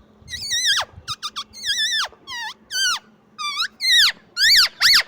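Female Indian ringneck (rose-ringed) parakeet giving a quick series of short, high-pitched screeching calls, about a dozen, each swooping sharply down in pitch.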